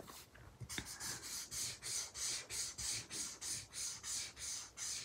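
Promarker alcohol marker nib rubbing on paper in quick back-and-forth colouring strokes, about three a second, starting about a second in.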